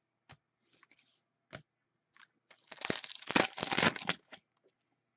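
A foil hockey card pack being torn open by hand, its wrapper crinkling. A few light clicks come first, then about two seconds of crackling tearing in the middle.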